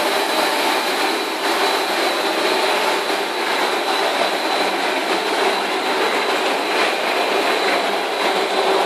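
Corn puff snack extrusion line running: a dense, steady machinery noise with a thin high whine running through it.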